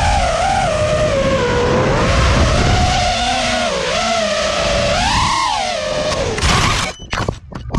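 FPV quadcopter motors whining, the pitch rising and falling with the throttle, over a rush of wind. Near the end the whine cuts out into a broken clatter as the drone crashes into tree branches.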